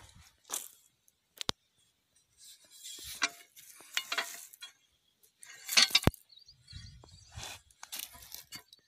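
Dry crackling rustles coming in short bursts, several times, with two sharp clicks. The loudest rustle is a little over halfway through. The sound is of dry leaves and crop stubble on the ground being disturbed.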